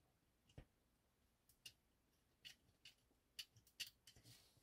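Faint, scattered small clicks and ticks, about nine at irregular spacing, of a folding knife's parts being handled while its handle is worked apart.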